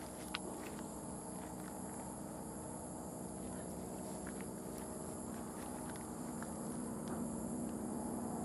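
Faint footsteps and rustling on a dry, grassy bank, with a few light clicks, over a steady low outdoor hum.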